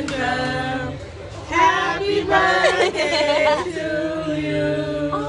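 A group of voices, a man's among them, singing a birthday song together, ending on a long held note.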